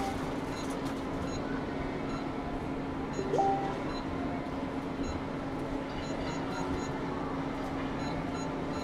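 JBC hot air rework station blowing steadily while reflowing a Tristar charging IC onto an iPhone 6S logic board: an even airflow hiss with a steady low hum. A short two-note whistle rises about three seconds in.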